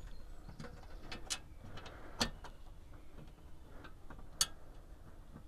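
Faint, scattered sharp clicks and light metallic taps as a bolt and nut are fiddled into place by hand on a steel vehicle safe mounted in a door. The clearest clicks come about a second in, at about two seconds, and near the end.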